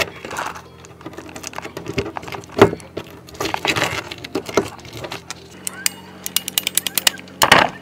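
Hands handling parts and tools: scattered knocks and rubbing, then a quick run of sharp clicks about six seconds in, with a louder scrape near the end.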